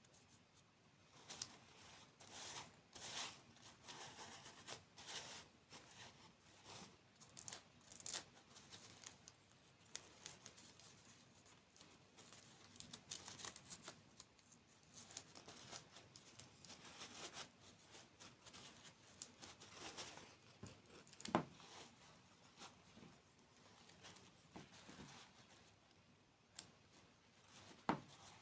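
Faint, irregular crackling and crinkling close to the microphone, from handling and eating candy and desserts, with one sharper click about two-thirds of the way in.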